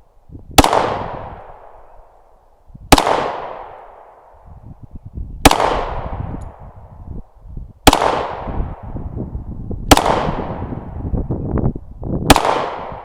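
Glock 20 pistol in 10mm Auto fired six times in slow, aimed succession, about two to two and a half seconds apart. Each shot is a sharp report followed by a long echo.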